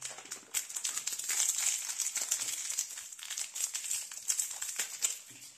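Plastic blind-bag wrapper crinkling and tearing as it is opened by hand, a dense crackle of many small clicks.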